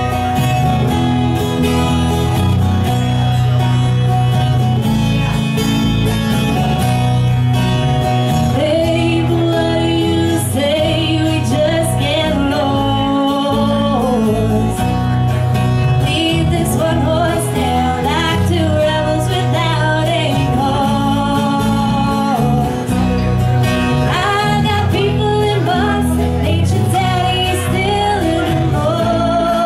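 Country song played live by a band: strummed acoustic guitar with bass, and a woman singing the melody, her voice coming in about nine seconds in.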